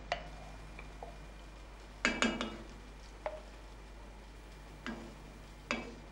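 Utensils knocking and clinking against a cast-iron pot and a stoneware mustard jar while a sauce is stirred and mustard is added: about seven short sharp knocks, with a quick run of three a little after two seconds.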